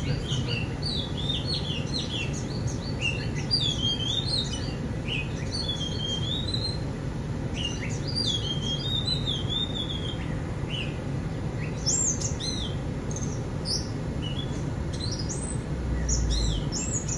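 Wild birds chirping and whistling, several calls overlapping in quick warbling phrases throughout, over a low steady hum.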